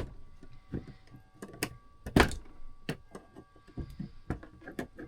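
Irregular sharp metallic clicks and knocks of small hand tools working a pin and mainspring on a Seth Thomas clock movement, loudest about two seconds in.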